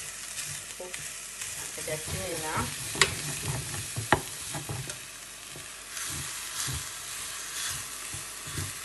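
Potato, carrot and onion samosa filling sizzling in oil in a pan while being stirred and scraped with a utensil. Two sharp clicks of the utensil striking the pan come about three and four seconds in.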